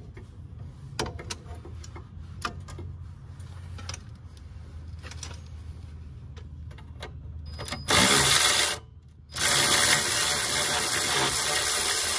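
Cordless power tool on a long socket extension running in two bursts, a short one about eight seconds in and then a longer one of about three seconds, spinning a nut off the front steering knuckle. Before it come faint clicks of hand tools on metal.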